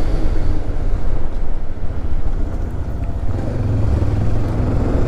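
Motorcycle engine running with wind rumble while riding. The bike slows, and about three seconds in a steadier engine note comes up as it picks up speed again.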